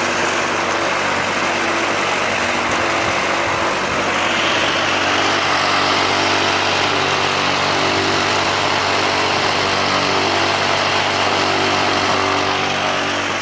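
Electric vibrating motor of a homemade compost sifter running steadily: a constant hum under a continuous rattling hiss from the shaking wire-mesh screen and wooden frame as compost is tipped onto it.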